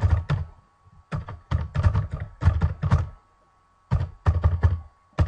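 Typing on a computer keyboard in quick runs of keystrokes, each a click with a heavy thunk, with short pauses between runs: an email address and licence key being entered.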